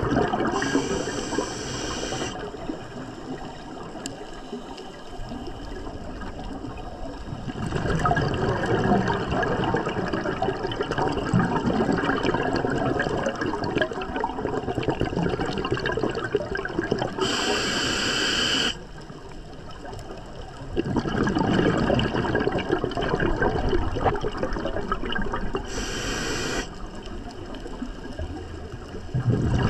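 Scuba diver breathing through a regulator underwater: three short hissing inhalations, near the start, about two-thirds of the way through and near the end, with long stretches of bubbling exhalation between them.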